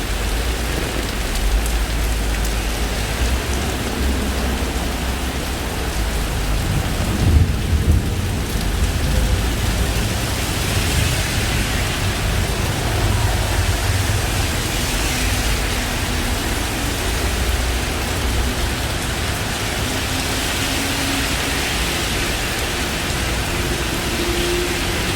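Heavy rain pouring down steadily, with a deep low rumble underneath and a short louder burst of it about seven seconds in.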